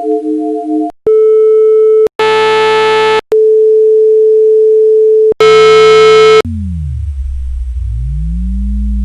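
A string of synthesized electronic machine tones. Short alternating two-pitch beeps come first, then a steady pure tone. After that, a harsh buzzy tone about a second long, a longer steady pure tone, and a second buzzy tone. Near the end comes a low electronic hum with a sweeping tone that falls, then rises and falls again.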